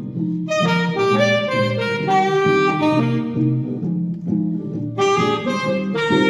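Alto saxophone playing a jazz melody over guitar accompaniment. The saxophone line breaks off briefly just after the start and again about two-thirds of the way through while the accompaniment carries on.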